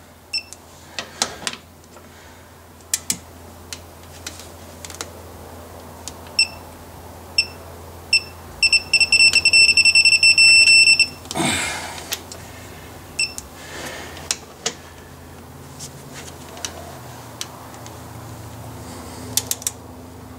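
Electronic torque wrench set to 70 newton-metres beeping while a mounting bolt is tightened. There are a few short beeps, then one steady beep lasting about two seconds from around nine seconds in, the signal that the set torque has been reached. The ratchet head clicks sharply now and then.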